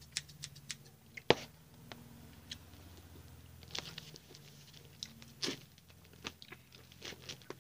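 Scissors and a small cardboard box being handled as the box is cut open: scattered sharp clicks, snips and short crackles of cardboard, the loudest a sharp click about a second in.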